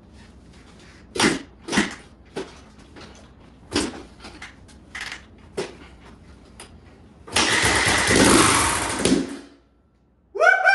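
Suzuki DR-Z125's 125 cc four-stroke single being kick-started after a rebuild with a new cylinder, piston and rings: a run of sharp knocks from the kick-start, then about two seconds of loud rushing engine noise that dies away without the engine settling into a run.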